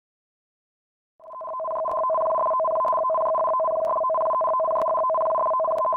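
Electronic alert tone: two steady pitches sounding together, starting about a second in and held without change for several seconds. It is the signal that heralds a tsunami warning announcement.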